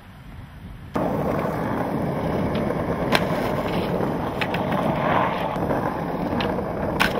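Skateboard wheels rolling over rough asphalt: a steady rumble that starts suddenly about a second in, with a few sharp clicks as the wheels cross cracks.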